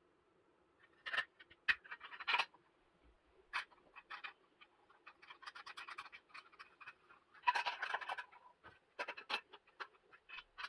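Plastic pushbutton parts and a plastic control-box enclosure being handled and fitted together: irregular clicks, scrapes and rattles, busiest a little past halfway.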